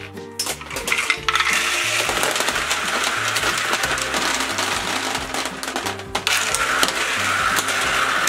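Many gumballs rattling and rolling down the plastic spiral ramps of a Fisher-Price double spiral race toy, a dense continuous clatter that starts about a second in, over background music.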